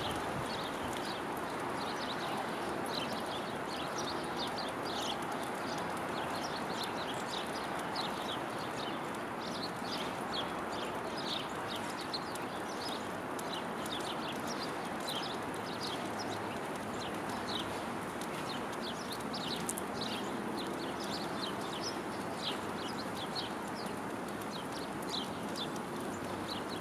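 Small songbirds chirping, many short high calls repeating irregularly throughout, over a steady rushing background noise.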